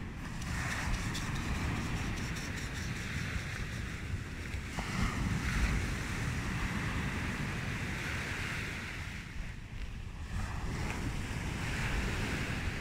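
Small waves breaking and washing up a pebble beach, the hiss swelling and fading every few seconds, with wind buffeting the microphone.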